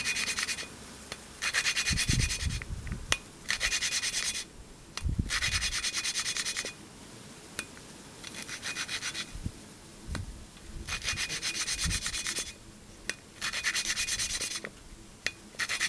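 A new valve being hand-lapped into its seat in a GY6 150cc scooter cylinder head: the valve is spun back and forth with grinding compound between the valve face and the seat, making gritty rasping strokes in about seven bursts with short pauses between them. A few soft knocks come as the valve is lifted and set back down, which spreads the silicon carbide compound.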